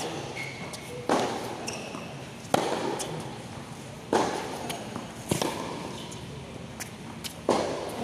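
Tennis ball being struck and bouncing on a hard court: sharp pops every second and a half or so, each echoing under the roof, with short shoe squeaks between them.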